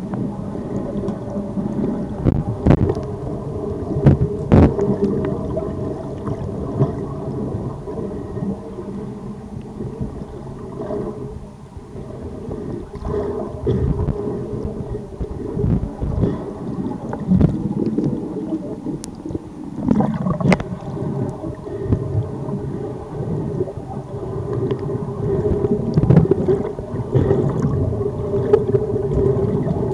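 Underwater recording noise: a dull rumble of moving water against the camera, with a faint steady low hum and scattered knocks and thumps.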